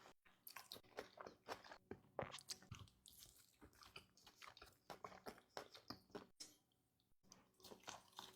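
Faint close-up sounds of a person chewing and biting food, a run of short, irregular wet mouth clicks and crackles.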